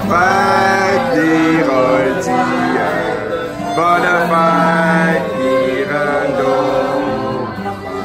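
Small live acoustic ensemble playing a melody: violin, acoustic guitar and clarinet, with a cello.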